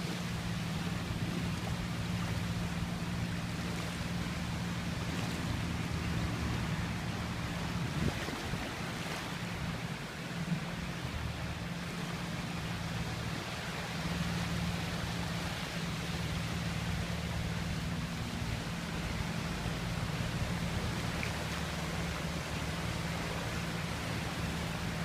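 Ocean water rushing steadily, with a low steady hum underneath.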